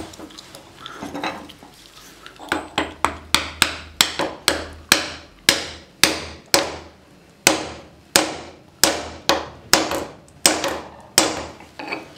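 Hammer blows seating a wooden handle in an old hammer head held in a vise: a run of sharp strikes, two to three a second, each ringing briefly, beginning about two seconds in.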